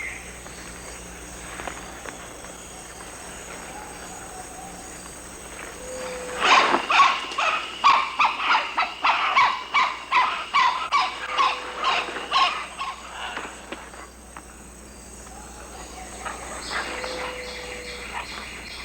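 An animal gives a run of about fifteen loud, repeated calls, roughly two a second, starting about six seconds in and stopping about seven seconds later. Underneath is a steady chorus of tropical forest insects.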